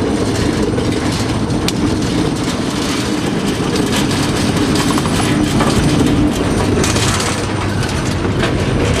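TEM2 diesel shunting locomotive under way, its six-cylinder diesel engine running steadily, with wheels clicking irregularly over the rail joints, heard from inside the cab.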